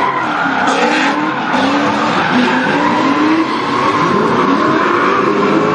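Drift cars' engines revving up and down, with tyres squealing and skidding as the cars slide sideways.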